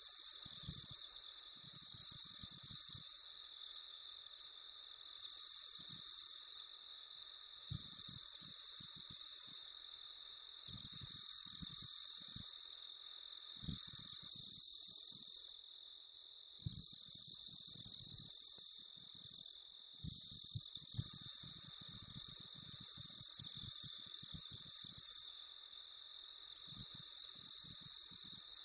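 Crickets chirping: a steady high-pitched trill of rapid, evenly repeated pulses.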